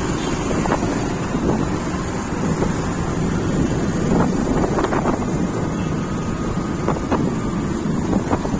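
Wind buffeting the phone's microphone on a moving motorcycle, with the bike's engine running underneath and street traffic around it.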